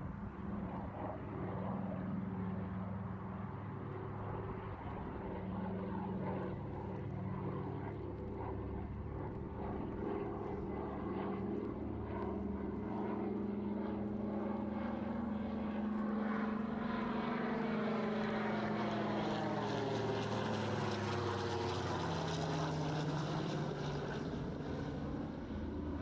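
Douglas C-53 Skytrooper's twin Pratt & Whitney R-1830 radial engines droning in flight, growing louder as it comes past, with the pitch dropping after it passes about three-quarters of the way through.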